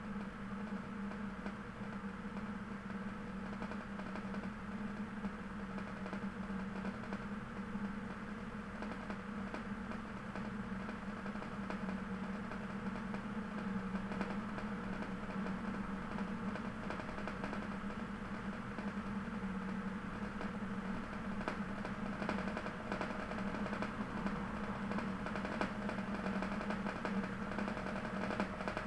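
A steady low mechanical hum with no speech, unchanging in pitch.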